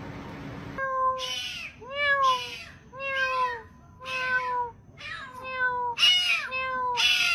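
Kitten meowing over and over, starting about a second in: short calls, roughly one a second, each dipping in pitch at the end.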